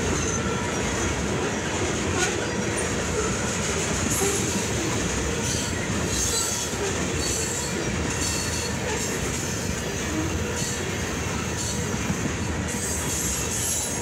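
Freight train of ethanol tank cars rolling past at close range: a steady rumble of steel wheels on the rails, with high wheel squeal coming and going.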